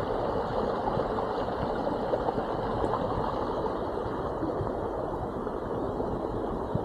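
Steady rushing of a small stream's water, an even wash of sound with no break.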